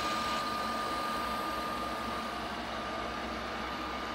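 The Rigiva universal milling machine's spindle runs steadily at its top speed of 1200 rpm: an even mechanical hum with a thin, steady whine. There is no knocking or rattling, which marks the spindle as running smoothly, without extra noise or vibration.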